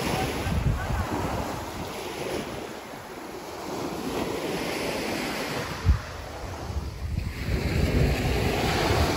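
Surf washing onto a beach in slow swells, with wind buffeting the microphone; a single sharp thump about six seconds in.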